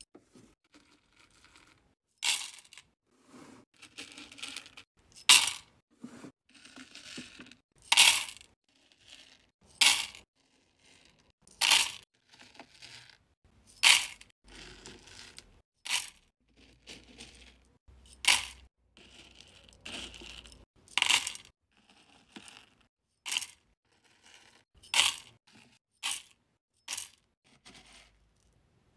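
Hard wax beads rattling and clinking as a scoop digs into them and pours them into a metal wax-warmer pot, a short sharp clatter every second or two.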